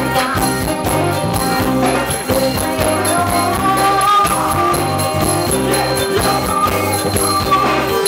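Live Thai ramwong dance band playing through a PA: a steady drum beat with a melody line on top.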